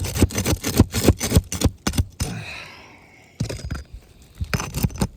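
Rapid scraping and crackling of a tool worked under asphalt shingles to break them loose from the sealant. It goes in quick strokes, eases off about two seconds in, and picks up again near the end.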